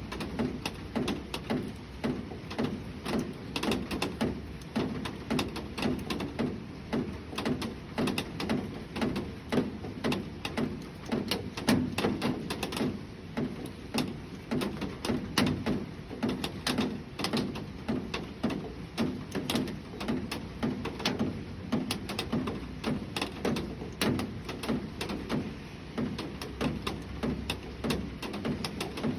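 Rain: a dense, irregular patter of raindrops tapping on a hard surface, continuing steadily.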